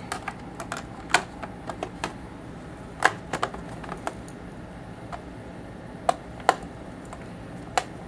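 Irregular sharp plastic clicks and taps: the Toshiba Satellite S55D's bottom access cover being pressed into place and screwed down with a small screwdriver.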